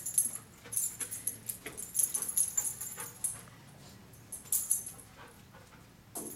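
A dog's collar tags jingle in short, irregular bursts as she moves about sniffing.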